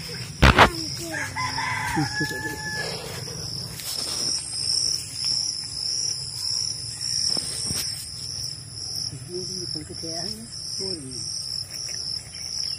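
A rooster crows once, a long held call about a second in, over a steady pulsing chirr of insects. A sharp knock just before the crow is the loudest sound.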